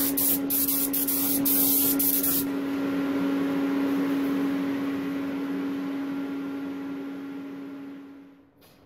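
Pressurised spray hissing over a steady hum, with a few clicks. The sharp hiss cuts off about two and a half seconds in; the hum and a softer hiss continue and fade away near the end.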